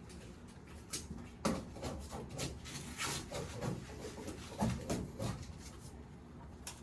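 Small dog, a Pomeranian, making short soft whines among light taps and rustling.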